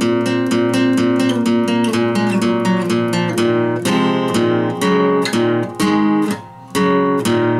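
Acoustic guitar strummed in an improvised instrumental, quick even strokes with the chords changing. After about four seconds the strokes come slower, and near the end the playing stops for a moment before picking up again.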